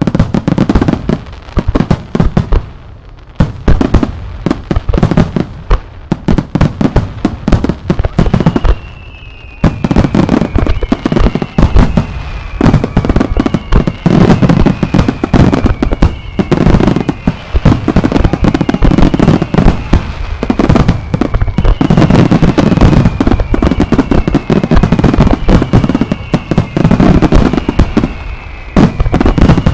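Starmine fireworks barrage: rapid booms and crackling bursts overlapping without a break. From about a third of the way in, a string of falling whistles repeats every second or two over the bursts.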